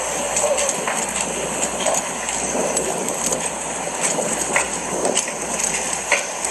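Steady rushing noise with scattered faint clicks and rustles, picked up by a police officer's body-worn camera while he walks.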